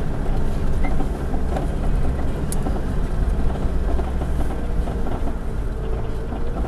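Four-wheel drive's engine running steadily under load while climbing a rough track: a low, even drone with a few light ticks.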